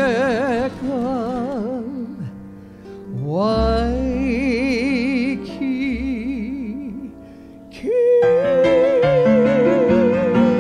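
A woman singing the last long held notes of a Hawaiian ballad with a wide vibrato over grand piano accompaniment, sliding up into one note about three seconds in and holding a final long note from about eight seconds in.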